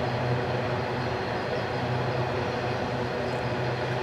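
Coal train's hopper wagons rolling across a rail bridge: a steady rumble of wheels on rails with a constant low hum underneath.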